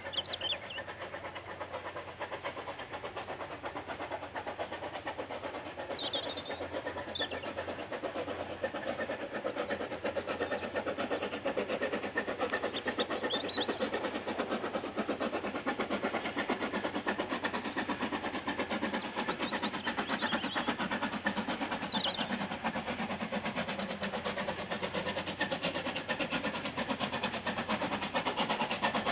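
Steam locomotive working hard up a steep gradient, its rapid exhaust beats and hiss slowly growing louder as it approaches.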